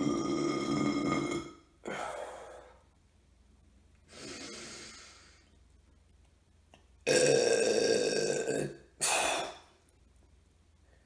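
A man belching twice, two long, loud burps with a steady pitch, the first at the very start and the second about seven seconds in, each followed at once by a short breath out, with a softer exhale in between. The burps come from a stomach full of watermelon.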